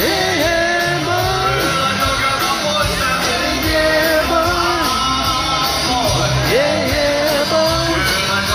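Rock band playing a rock and roll song live, with held melody lines bending in pitch over electric guitar, bass and a steady drum beat, recorded from among the audience.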